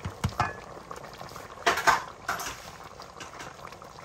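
A metal spoon basting fried snapper with bubbling brown stew sauce in a pot: a short clink against the pot near the start, a louder scrape and slosh of sauce just under two seconds in, then the sauce simmering.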